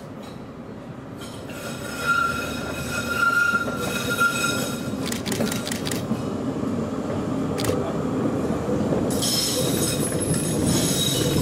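HTM 1024, a Hague PCC tram, running round a tight curve, its wheels squealing in high ringing tones from about a second in until about five seconds and again from about nine seconds. Under the squeal is a low rumble of the wheels on the rails that grows louder as the tram approaches, with a short run of clicks around the middle and one more click a couple of seconds later.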